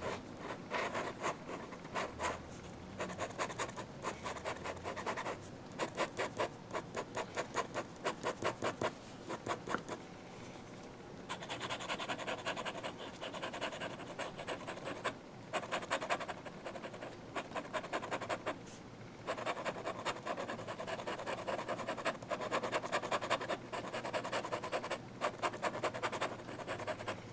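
Fountain pen nib scratching across Strathmore 400-series sketch paper in quick back-and-forth scribbling and hatching strokes, several strokes a second, with a few short pauses.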